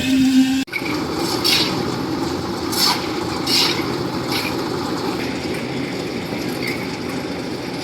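A steady hum cuts off abruptly under a second in and gives way to continuous machinery noise, a rumbling clatter with a few short hissing bursts.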